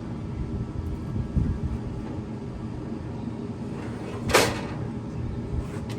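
A pellet smoker's lid is opened, giving one short, loud sound about four seconds in over a steady low rumble.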